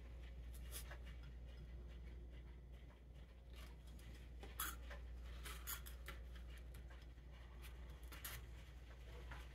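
Faint scattered clicks and light tapping of small metal carburetor parts handled on a desk as the choke shaft of a Ford 8N carburetor is worked into place, over a steady low hum.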